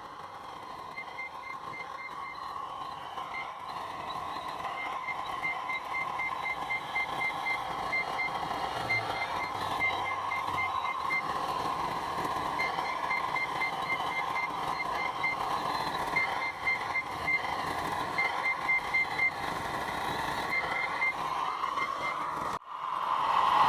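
Scale RC construction machine running, its electric drive giving a steady mid-pitched whine, while its reversing beeper sounds in runs of short high pips, about four a second. Near the end the sound cuts out briefly and comes back louder.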